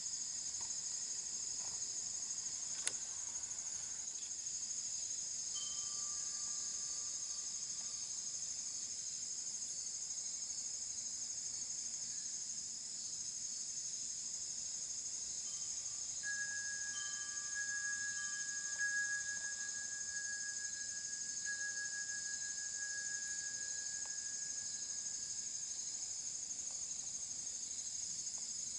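Steady, high-pitched chorus of insects, unbroken throughout. A single sharp click about three seconds in, and faint long steady tones in the second half.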